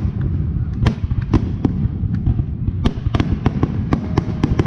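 Fireworks display: a continuous low rumble of bursting shells with many sharp bangs, which come faster in the second half.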